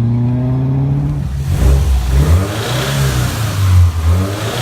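Car engine accelerating, its note rising steadily, then giving way after about a second to a louder, rougher exhaust sound with uneven low pulses.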